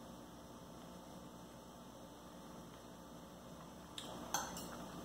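Low steady room hum, then about four seconds in a few light clinks of a fork and knife against a plate.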